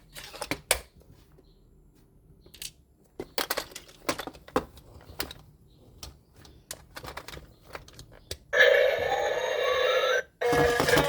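Light clicks and taps of plastic toy parts and packaging being handled, then about eight and a half seconds in a loud electronic toy sound effect with a rising tone plays for under two seconds, and a tinny electronic tune starts just before the end.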